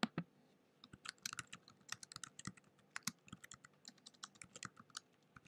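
Faint typing on a computer keyboard: a couple of key clicks, then a quick, uneven run of keystrokes from about a second in that stops just before the end.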